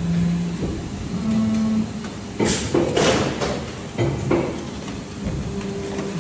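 Hydraulic injection moulding machine cycling during a mould trial: the mould opens and closes, with short steady pump hums that change pitch from stage to stage. Several sharp metallic clanks come about two and a half to four and a half seconds in, the loudest near the middle, while the mould stands open.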